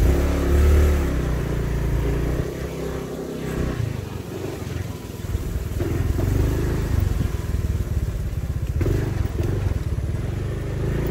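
Small motorbike engine running as the bike rides along a dirt track, loudest in the first second.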